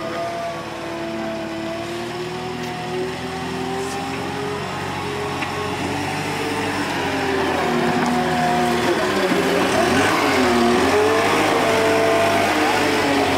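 A small wheeled site dumper's engine running as it drives closer, growing louder over the second half. A little past the middle its pitch dips and then picks up again.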